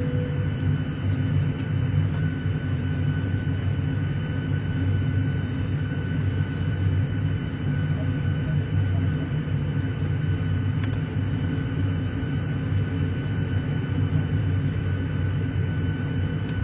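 Steady jet airliner cabin noise: a deep, even rumble of engines and airflow with a faint steady whine above it.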